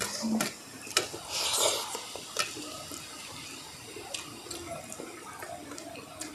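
Hands mixing rice with fish curry on steel plates: soft wet squishing with a few small clicks against the metal.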